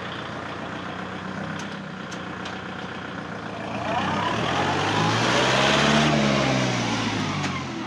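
Kubota MU4501 tractor's 2434 cc diesel engine running steadily, then its note rising and falling as the tractor drives close past, loudest about six seconds in.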